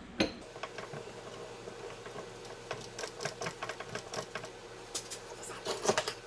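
Straight-cut steel gear being rocked and pressed down onto a Honda J-series transmission shaft: a run of light metallic clicks and ticks, with a louder knock just after the start and a quick cluster near the end. The gear is binding on the shaft, a very tight fit.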